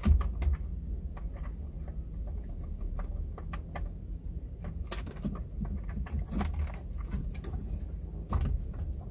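Irregular small plastic clicks and knocks from hands fitting clips and trim back onto a car's interior, over a steady low rumble; the sharpest click comes about five seconds in.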